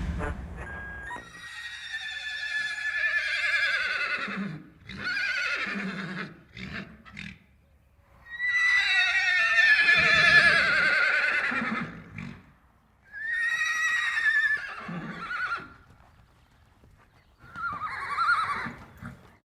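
A horse whinnying about five times with short silences between. Each neigh is a shaky, wavering high call that slides downward and ends in a low, rough rumble. The longest and loudest call comes in the middle.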